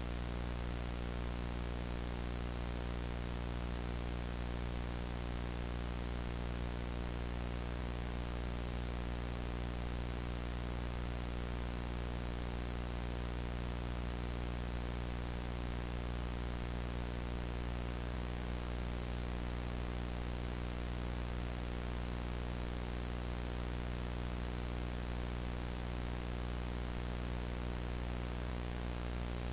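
VHS static: a steady analog tape hiss with a low hum underneath, unchanging throughout.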